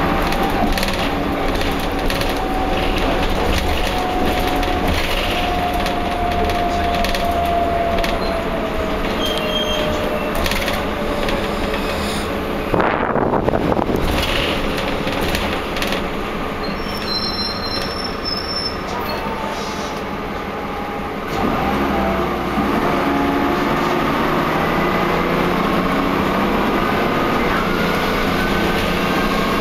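Cabin noise inside a Wright Cadet single-deck bus: the drivetrain's whine falls slowly as the bus eases off. A short loud hiss comes about 13 seconds in, then a quieter stretch with a couple of brief high beeps. About 21 seconds in the engine note steps up and the whine climbs again as the bus pulls away.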